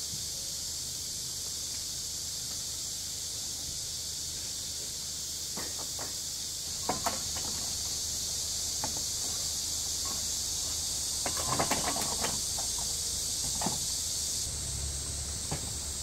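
Steady high-pitched hiss of summer valley ambience, with a few light clicks and knocks of camping gear being handled, a quick cluster of them about two-thirds of the way in.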